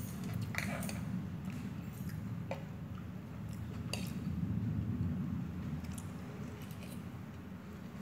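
Metal fork clinking and scraping against a plate while twirling and lifting noodles: several short, separate clinks over a steady low hum.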